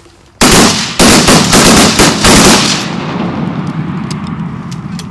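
Volley of shotgun blasts from several hunters firing together: a first shot about half a second in, then rapid overlapping shots for about two seconds, followed by a fading echo.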